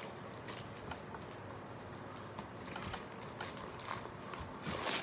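Faint taps and rustles of gloved hands handling a canvas wig block head, with a sharper click near the end.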